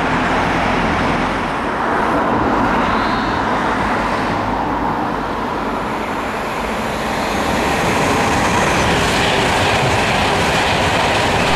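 High-speed passenger train approaching at speed and passing directly below: a steady rush of wheels on rail and air that grows louder from about eight seconds in as the train runs underneath.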